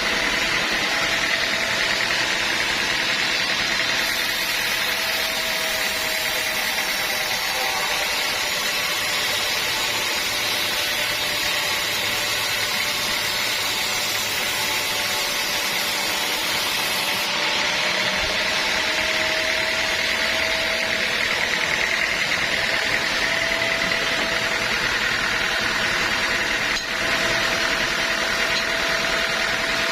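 Sawmill saw running steadily and cutting through a teak log, a continuous machine whine with a brighter hiss from about four seconds in until about seventeen seconds.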